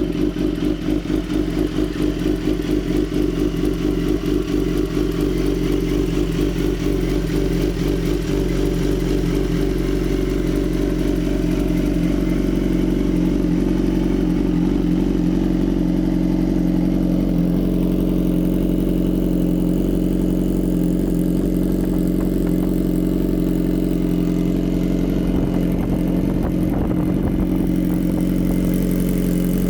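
BMW S 1000 RR HP4's inline-four engine idling steadily while warming up after a cold start. The idle note settles slightly lower partway through, with no revving.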